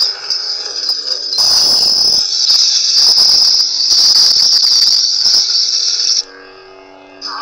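Lightsaber soundboard (Crystal Focus v5) playing a steady high-pitched hum effect through the hilt's small speaker. A rougher, noisier effect cuts in for about a second near the start, and the hum stops abruptly about six seconds in. A new effect starts just before the end.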